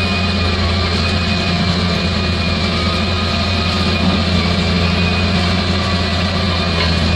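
Bulldozer's diesel engine running steadily under load, with a thin high whine that wavers slightly above the low engine note.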